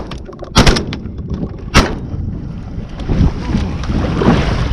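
Two shotgun shots about a second apart, fired at incoming sea ducks, over a steady hiss of wind and water.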